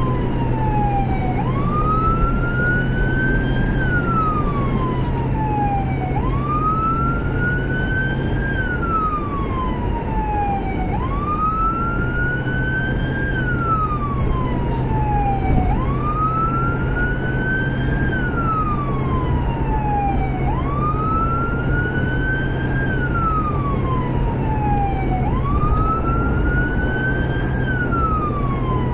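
Emergency vehicle siren in slow wail mode, rising and falling about once every five seconds, heard from inside a moving rescue vehicle over steady engine and road rumble.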